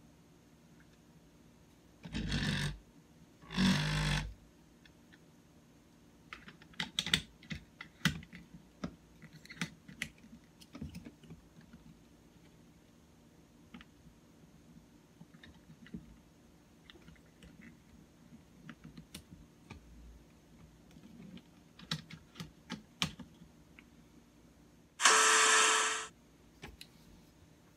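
Hands working a plastic phone holder clamp and tripod head: scattered light clicks and taps. Two brief louder noises come about two and four seconds in, and a loud noise about a second long comes near the end.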